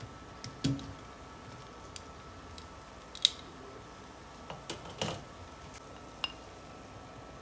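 Kitchen tongs clicking and tapping against an enamelled cast-iron skillet and a china plate while lifting syrup-soaked fried dough balls: a few separate sharp taps, the loudest about three seconds in and a small cluster around five seconds.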